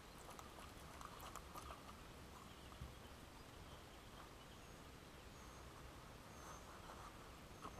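Near silence: faint steady outdoor background with a few faint, short high chirps in the second half.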